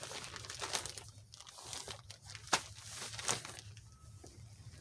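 Plastic mailer bag crinkling and crackling as it is handled, in irregular bursts, with two sharper crackles past the middle.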